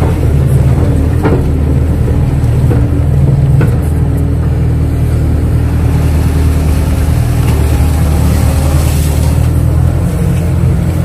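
Kato crawler excavator's diesel engine running steadily while it works, with a couple of sharp knocks about a second and three and a half seconds in.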